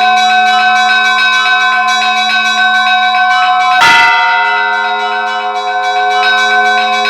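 Russian church bells ringing (kolokolny zvon): the smaller bells are struck in quick repeated strokes over the sustained hum of the larger bells. Just under four seconds in, a heavier bell is struck once, the loudest stroke, and rings on.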